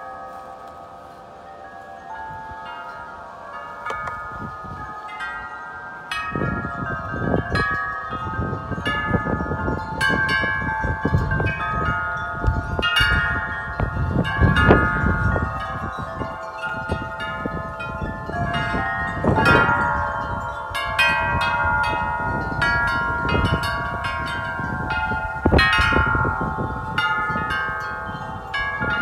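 Wind chimes blown by strong wind, many overlapping metal tones ringing and struck over and over. About six seconds in, the gusts pick up: the strikes come thicker and louder over a low rumble of wind.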